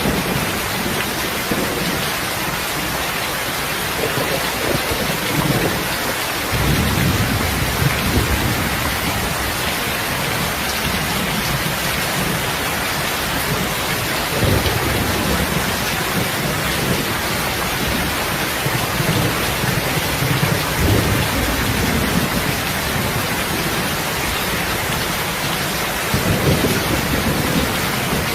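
Steady rain falling, an even hiss, with deep low rumbles swelling up about four times, around 7, 14, 20 and 26 seconds in.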